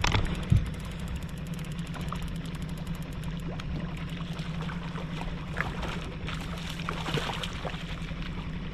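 Boat's outboard motor running steadily at trolling speed, with a hooked trout splashing at the surface beside the boat. Two sharp knocks come in the first second.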